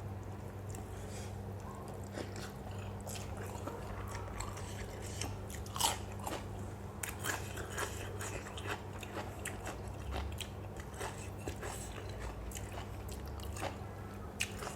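A person chewing at close range, a string of small crunches and clicks, with one louder crunch about six seconds in, while eating a pounded lotus-stem salad with raw shrimp.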